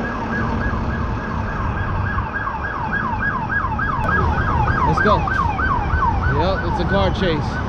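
Emergency vehicle siren in yelp mode: rapid up-and-down pitch sweeps, about four a second, over a low road rumble.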